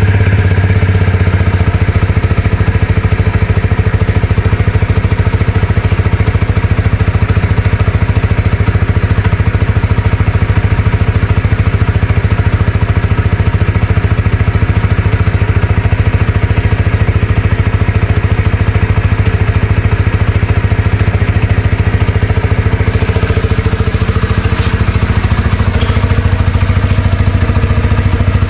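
Flash150X motorcycle engine idling steadily with an open throttle body, no air filter in front of it, so the intake noise comes through with the exhaust.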